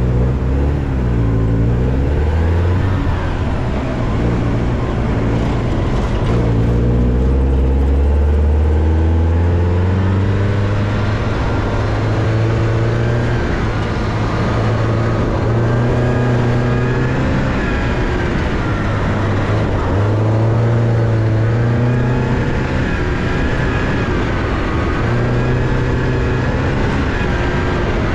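Porsche 944's four-cylinder engine driven hard around a dirt rallycross course: its pitch climbs under acceleration and drops back again and again with each shift or lift, over the hiss of tyres on loose dirt.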